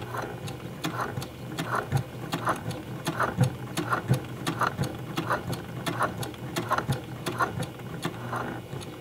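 Brother PQ1500S straight-stitch sewing machine running steadily, stitching through a folded denim jeans hem with heavy Tex 80 jeans thread and a size 100/16 topstitch needle: a fast, even clatter of stitches with a regular pulse under it.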